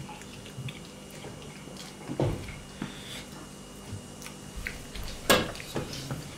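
Someone eating by hand: chewing, with scattered small mouth and finger clicks. A sharp knock about five seconds in is the loudest sound, with a smaller one about two seconds in.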